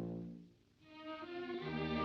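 Orchestral cartoon score. One music cue fades out about half a second in, a brief hush follows, and a new string-led passage begins about a second in.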